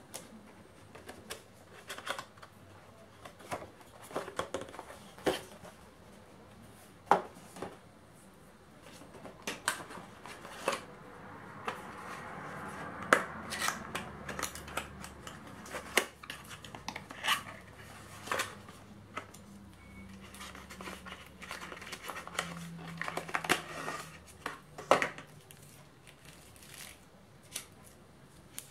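Cardboard packaging and small plastic-bagged accessories being handled by hand: irregular clicks, taps and rustles as a box is opened and its contents lifted out.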